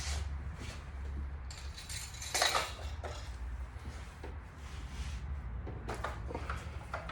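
Light metallic clinks and rattles of parts and tools being handled during car work, loudest about two and a half seconds in and again briefly near the end, over a steady low hum.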